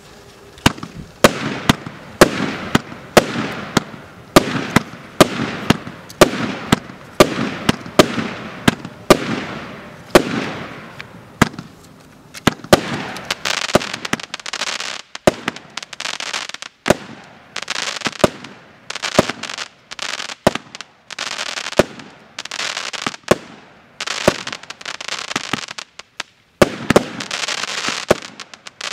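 A 100-shot, 0.8-inch firework cake (Joker Fireworks JF C20-100/01) firing shot after shot, roughly two launches a second, with short pauses later on. Each sharp launch report is followed by the crackle of the bursting shells.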